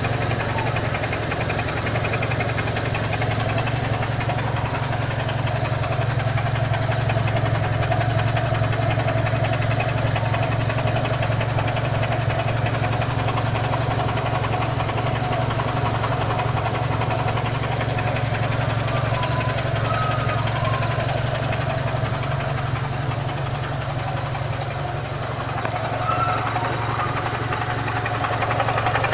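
Renault Symbol 1.6 16v four-cylinder petrol engine idling steadily. It carries the unexplained noise that the owner is trying to trace.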